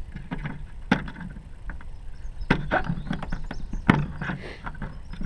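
Ruger Super Single Six revolver being loaded with .22 long rifle rounds: sharp clicks as cartridges go into the cylinder and it is turned chamber by chamber, the loudest about one, two and a half and four seconds in, over handling noise.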